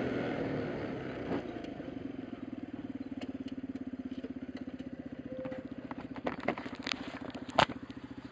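Small 50cc motorbike engine easing off as the bike slows, then idling with a steady, rapid, even putter. A few knocks come near the end, the loudest a single sharp knock about 7.5 seconds in.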